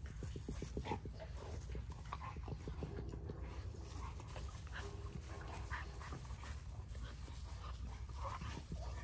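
American bully puppies making short, scattered yips and grunts as they play-bite at an adult male bully's face, with a dog panting.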